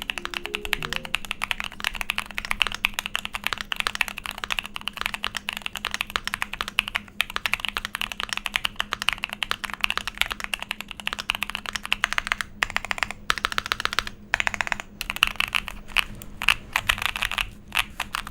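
Typing sound test on a Keychron Q2 aluminium gasket-mount keyboard fitted with Anubis tactile switches, Hammerhead keycaps and polyfill in the case. Quick, continuous keystrokes, broken by a few brief pauses past the middle.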